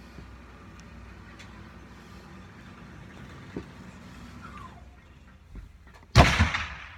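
Quiet metal handling of a Remington New Army percussion revolver being worked with its loading lever: small clicks and a short falling squeak, then one loud sharp clack about six seconds in.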